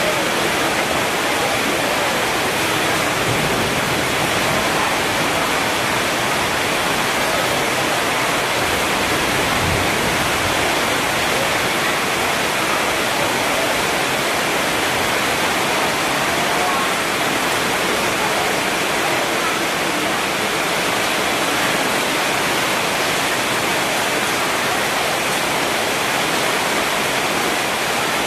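Steady, loud rushing hiss of water, even throughout with no breaks or changes.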